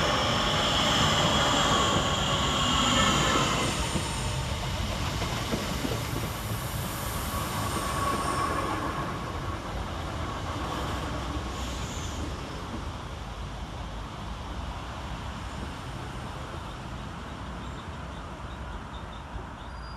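Southeastern Class 465 and Class 466 Networker electric multiple units running into the platform. For the first few seconds there is high wheel and brake squeal, then rail running noise that grows steadily quieter as the train slows.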